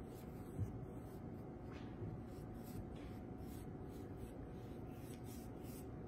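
Faint brushing of a paintbrush dragging paint across a canvas in short repeated strokes, over a low room hum, with one soft thump about half a second in.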